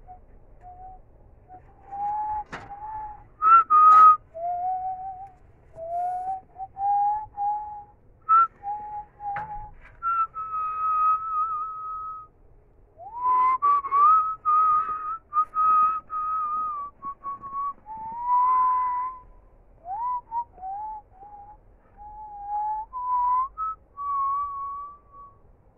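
A person whistling a tune: a single melodic line in short phrases, sliding between notes.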